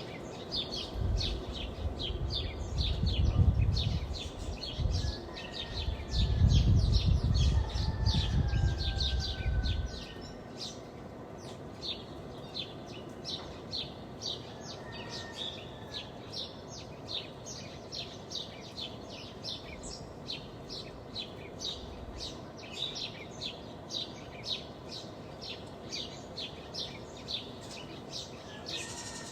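Morning village ambience: small birds chirping rapidly and continuously, a few short chirps a second, with faint whistles behind. A low rumble swells twice in the first third and cuts off suddenly about ten seconds in.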